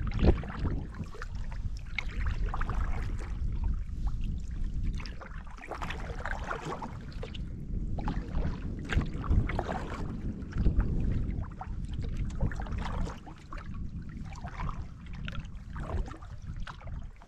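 Water lapping and splashing around a canoe on a lake, with wind buffeting the microphone in an uneven low rumble.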